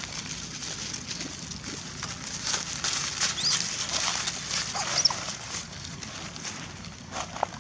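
Young long-tailed macaques giving a few short, high squeaks and whimpers, mostly around the middle and once near the end, over the crackling rustle of dry leaves as they move about on them.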